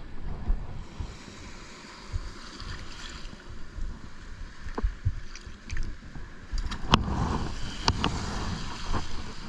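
Surf washing around the feet in the shallows, with wind rumbling on the microphone. The wash swells louder about two-thirds of the way through, and a few sharp clicks come from handling the hook and fish.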